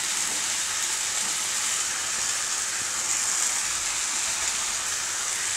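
Chopped vegetables (onion, tomato, carrot and capsicum) sizzling in hot oil in a frying pan over a high gas flame, a steady, even hiss.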